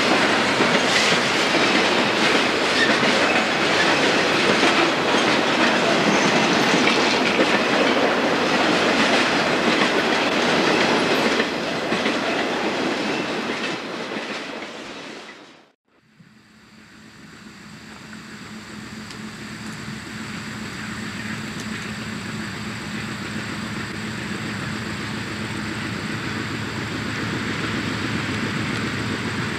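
Freight train of trailers on flatcars rolling past close by, its wheels clacking over the rail joints. It fades out about halfway through. After that, an approaching train's diesel locomotives are heard at a distance, a steady low rumble growing slowly louder.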